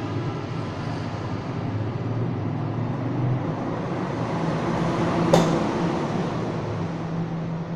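Granite-cutting machine running with a steady mechanical drone, with one sharp knock about five seconds in.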